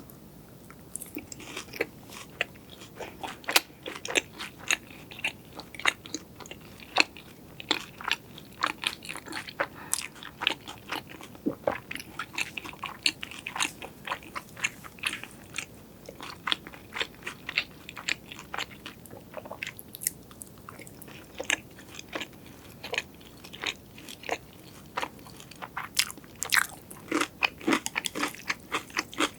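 Close-miked crunching and chewing of crispy fried food: irregular sharp crackles several times a second.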